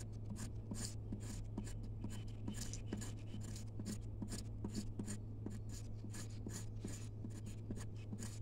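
Knife blade scraping the pulp off a green sisal leaf laid on a wooden board, in short rasping strokes about three a second. This is stripping the leaf flesh to free its fibres for cordage.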